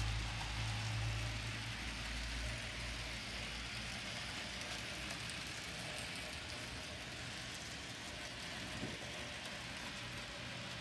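Steady low hum over an even hiss, from a model steam train running along the layout track; the hum is strongest for the first couple of seconds, then eases off.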